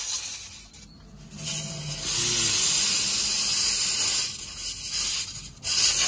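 Compressed air hissing loudly out of a truck's melted, leaking air-pressure pipe, as pressure is built up with the line burst. The hiss cuts out briefly twice, about a second in and again near the end.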